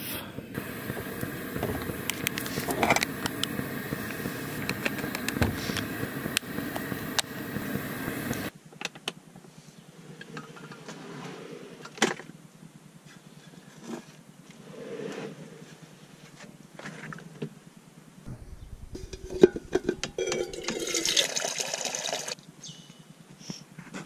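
Camp cooking gear being handled in a vehicle's storage drawer: scattered knocks and clatter of pots and containers. Near the end comes a louder rushing noise of water being poured into a billy pot.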